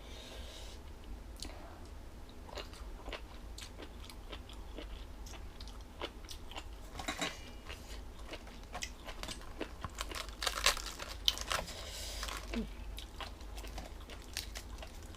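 A person chewing and biting crunchy jellyfish salad: irregular crunches and small clicks, busiest in a cluster about ten seconds in.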